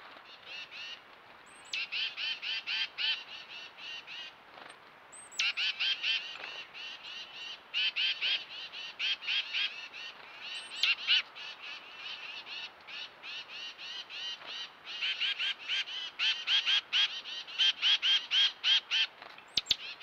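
Chickadees giving their chick-a-dee call over and over: each bout opens with a high thin note or two and runs into a long, rapid string of buzzy 'dee' notes. A single sharp click sounds near the end.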